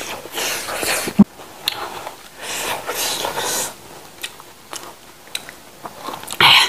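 Close-miked mouth sounds of eating: wet chewing and smacking in irregular bursts, with a sharp click about a second in and a louder burst near the end.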